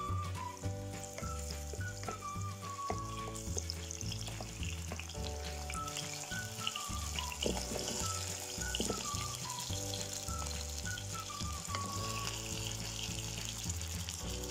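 Diced shiitake mushrooms sizzling in hot oil in a nonstick frying pan, the sizzle growing stronger a few seconds in; around the middle, potato chunks drop into the pan with a few knocks. Background music with a bass line and a simple repeating melody runs under it.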